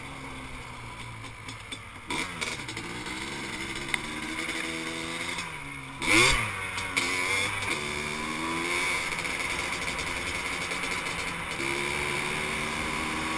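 Yamaha Blaster ATV's single-cylinder two-stroke engine under way, its revs rising and falling, with a sharp loud rev about six seconds in and steadier running after.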